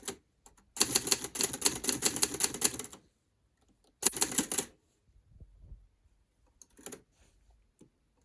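Hermes 3000 manual portable typewriter being typed on: a fast run of key strikes for about two seconds, a pause, then a second short burst of keystrokes, with a few scattered clicks afterwards.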